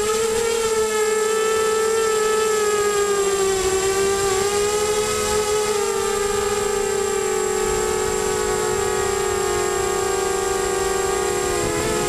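Whine of a mini FPV quadcopter's four Emax MT1806 brushless motors spinning 5x3 props, heard from the onboard camera. The pitch wavers and dips briefly about four seconds in and again near the end.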